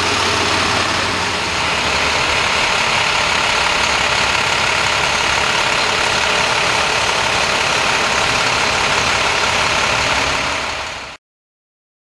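A vehicle engine idling steadily under a dense hiss, cut off abruptly about eleven seconds in.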